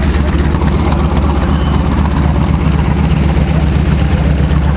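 An AT-6 Texan's Pratt & Whitney R-1340 radial engine and propeller running at a steady, unchanging drone.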